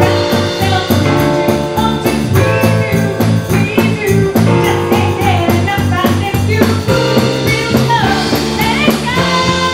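Live band playing: a woman singing into a microphone over electric bass and a drum kit, with a steady cymbal beat ticking several times a second.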